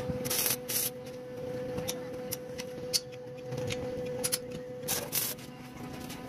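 Stick (arc) welder tack-welding thin steel rod: two short bursts of crackling arc, one about half a second in and one about five seconds in, over a steady hum, with a few sharp clicks between.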